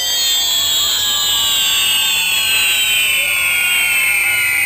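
Many firework whistles sounding together on a ground firework wheel, a shrill chorus of high tones whose pitch slowly falls throughout.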